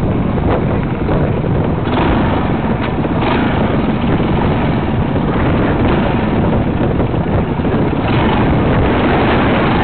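Trials motorcycle engine running, heard through a helmet-camera microphone with a steady heavy rumble of wind buffeting; a few sharp knocks in the first few seconds.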